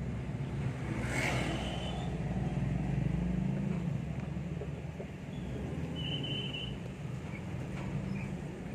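Ambulance running on the road: steady low engine and road rumble, with a brief high squeak about a second in and another, longer one around six seconds in.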